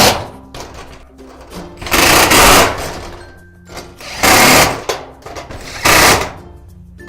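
Cordless drill-driver driving self-drilling screws through a steel pad bolt into the door's sheet metal, in short whirring bursts: one ending just at the start, then three more about two seconds apart.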